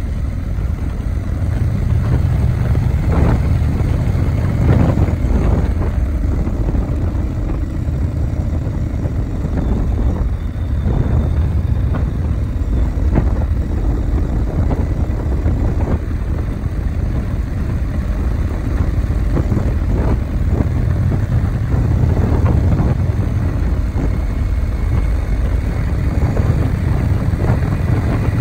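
Steady low rumble of a vehicle running along without a break.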